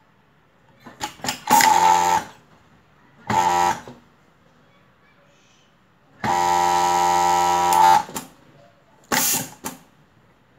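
Voltex H8 industrial overlock sewing machine stitching in short bursts, four runs at a steady whirring pitch, the longest lasting nearly two seconds in the middle, with a few sharp clicks between runs.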